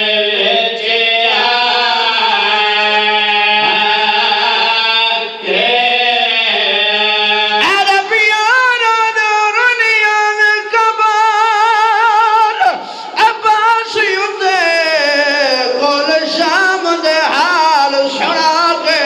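A man's voice chanting a mournful lament into a microphone, drawn out and high. Long held notes give way, about eight seconds in, to a wavering, ornamented melodic line.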